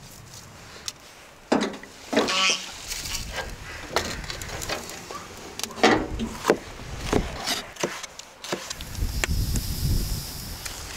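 Wet squelching as raw meat and sliced onions are mixed by hand, followed by a wood fire crackling with sharp pops. A low rumble of flames comes in near the end.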